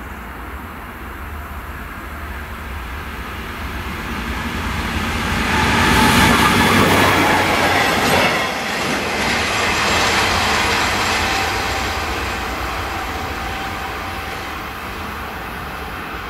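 Freight train of tank wagons rolling past on the rails. The noise of the wagons builds, is loudest from about six to eleven seconds in, then fades away.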